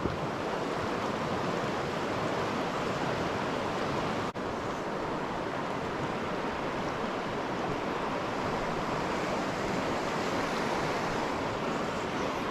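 Steady rush of a stream's flowing current, with a brief dropout about four seconds in.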